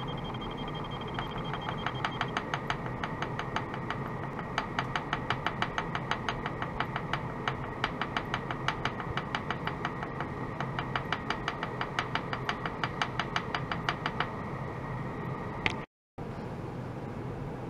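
Rapid light taps of a small wooden stick on a stainless steel tray, about four a second, each with a short metallic ring, over a faint steady high tone. The tapping stops near the end.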